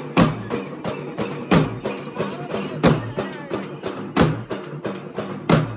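Large steel-shelled drums beaten with sticks in a fast, driving rhythm, with a loud accented stroke about every second and a third and quicker strokes between.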